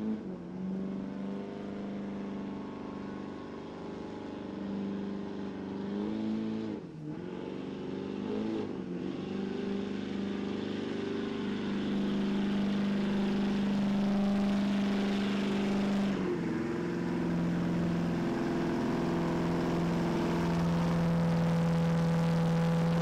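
A pulling truck's engine held at high revs under load, a steady pitch with two brief dips about 7 and 9 seconds in and a step down to a lower steady pitch about 16 seconds in. The sound falls away abruptly at the very end.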